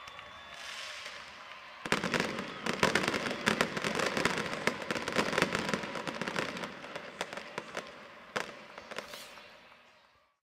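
Stadium pyrotechnics crackling: about two seconds in, a sudden dense burst of rapid firecracker-like pops and crackles starts. It thins out after several seconds into a few last separate pops and dies away.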